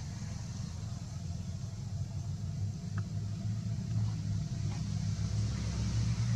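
A low, steady rumble that slowly grows louder, with a steady high hiss over it and a few faint clicks.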